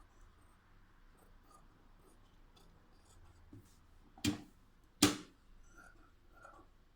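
Two sharp clicks about a second apart, over faint scattered light ticking and handling noise.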